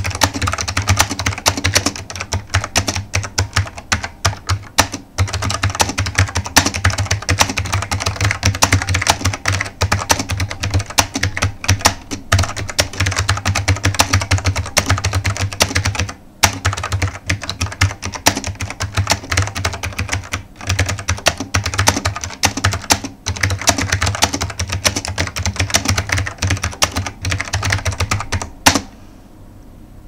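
Fast typing on a KPT KPT-84 keyboard with very clicky KPT blue switches and thin double-shot ABS keycaps: a dense stream of key clicks with a few brief pauses, ending with one louder keystroke about a second before the end.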